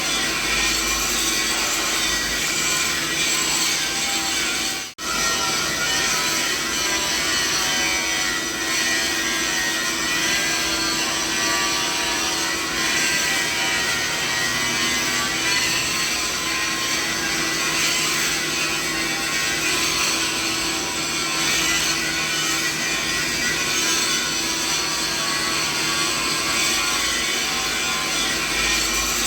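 Steady mixed-frequency machine noise: a constant hum with several steady tones over a broad hiss. It cuts out for a moment about five seconds in, then carries on unchanged.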